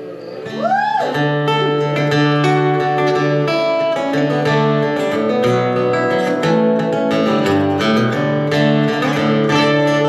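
Acoustic guitar strummed and picked through an instrumental break, chords changing steadily, coming in louder about half a second in.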